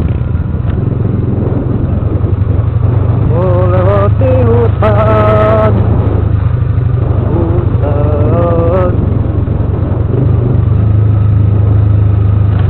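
Motorcycle engine running steadily under way, with wind and road noise on the microphone. Twice, around four and eight seconds in, a brief wavering pitched tone rises above it.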